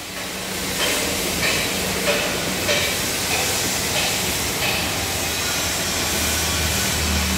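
Steady factory machinery noise: a loud hiss over a low hum, pulsing regularly about every two thirds of a second.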